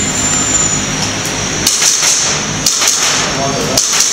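A handgun fired in a string of sharp shots, several of them in quick pairs, starting about a second and a half in.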